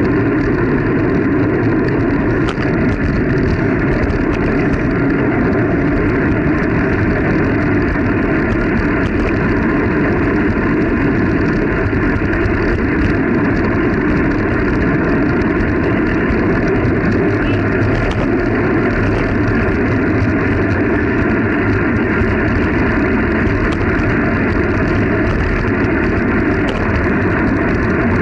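Steady wind rushing over the microphone of a camera riding on a moving bicycle.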